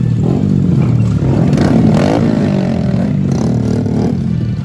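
Several small motorcycle and scooter engines, Honda Groms among them, running together as the bikes move off. One is revved up about one and a half to two seconds in.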